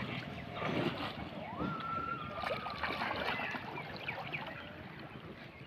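Water splashing and sloshing, with one held whistle-like tone that rises in about one and a half seconds in and lasts about a second and a half.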